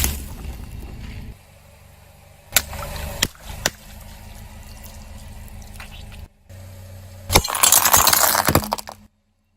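A few sharp cracks and snaps a few seconds in, then a dense crackling burst of brittle things breaking under pressure, with glassy clinks. The sound drops out abruptly twice.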